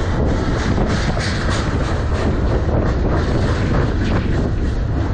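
Freight cars of a passing manifest train rolling by close to the track: a loud, steady rumble of steel wheels on the rails.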